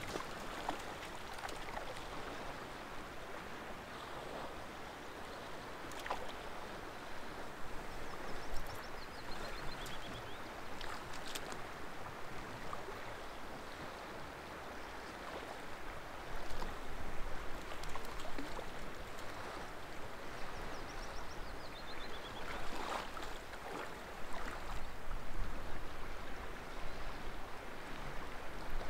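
Steady rush of flowing water. A small bird twice sings a short run of high notes falling in pitch, about nine seconds in and again near twenty-one seconds.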